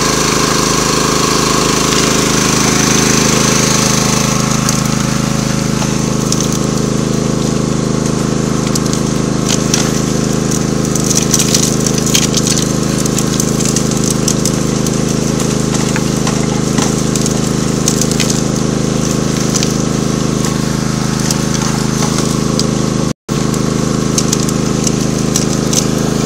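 Small gasoline engine driving the water pump of a gold dredge or highbanker, running steadily at a constant speed, with scattered clicks and rattles partway through. The sound cuts out for a moment near the end.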